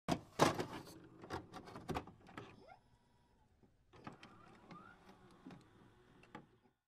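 Faint glitch sound effects of an animated intro: irregular digital clicks, crackles and whirs, busiest in the first two seconds, then fainter clicks with a short rising bleep about halfway through.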